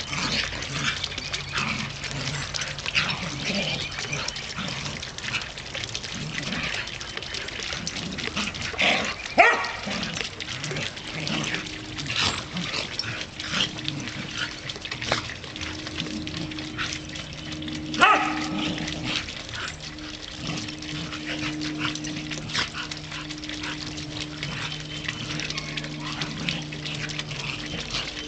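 Two dogs playing rough together, with scuffling and short barks; the two loudest barks come about nine and eighteen seconds in.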